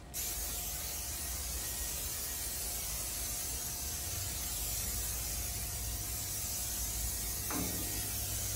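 Aerosol can of Pam canola cooking spray hissing steadily as it coats metal smoker grates, with one short knock near the end.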